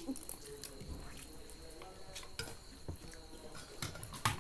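Children eating from plates and bowls: scattered clicks of spoons on dishes with soft wet slurping and chewing, and one sharper knock near the end.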